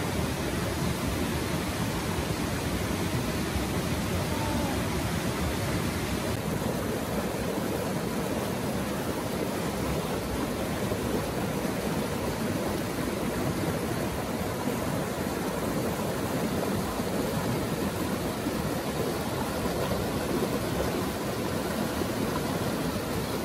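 Water rushing over rocks in a small stream cascade: a steady rushing noise, its tone shifting slightly about six seconds in.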